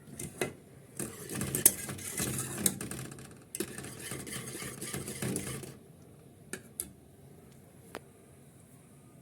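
A utensil stirring béchamel sauce in a pot as it thickens, scraping and clicking rapidly against the pot in two spells of a couple of seconds each, with a few single taps at the start and near the end.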